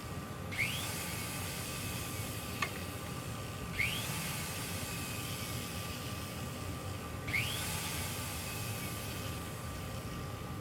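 Bench polishing wheel motor running steadily, a hiss with a thin whine, while a metal clasp is buffed. Three short rising squeaks and a single sharp click stand out.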